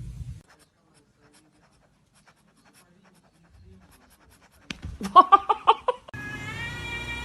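A cat meowing: after a quiet stretch, a quick run of short sharp calls about five seconds in, then one long drawn-out meow starting near the end.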